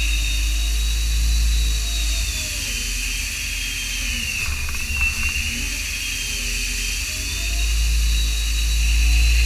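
Haas CNC lathe turning stainless steel bar stock: a steady high spindle whine over coolant spray hiss. The whine drops in pitch about two and a half seconds in, bottoms out around halfway, and rises back near the end as the spindle speed changes.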